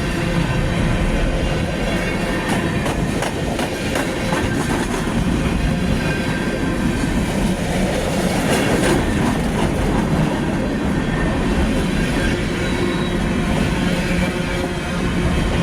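Union Pacific coal train's cars rolling past in a steady rumble, with clusters of wheel clicks over the rail joints and a faint wheel squeal.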